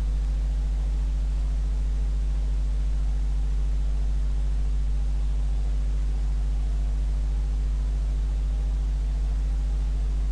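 Steady low electrical hum with a stack of evenly spaced overtones and a faint hiss, unchanging throughout: recording-chain mains hum with no speech.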